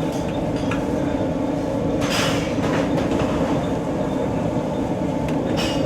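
Steady low rumble of a large cooking fire under a big biryani pot, as the masala is brought to the boil. Two short hissing bursts come about two seconds in and again near the end.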